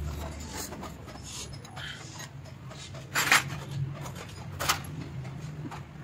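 Metal clanks and rubbing as parts on a removed engine cylinder head with camshafts are handled in a metal basin. There are two sharp clanks, a loud one a little past three seconds in and another nearly two seconds later, over a steady low hum.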